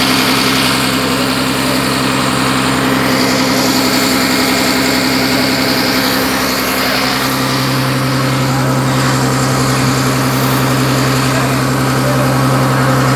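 Inboard diesel engine of a sea-fishing boat running steadily under way, a constant low hum, with the rush of water and wind along the hull. The hum grows stronger about seven seconds in.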